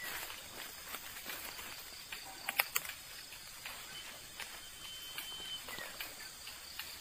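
Forest undergrowth ambience: scattered light crackles and clicks, like leaves and twigs being brushed or stepped on, with a short cluster of sharper clicks about two and a half seconds in. A thin high steady tone is held for about two seconds in the second half.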